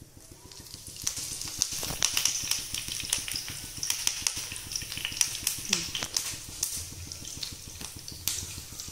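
Fresh curry leaves sizzling and crackling in hot oil in a non-stick frying pan, with sharp spattering pops. The sizzle starts about a second in, as the leaves hit the oil.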